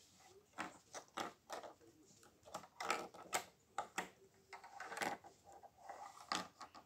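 Lego plastic minifigures and bricks being handled, a string of about a dozen small irregular clicks and taps, the loudest about three seconds in.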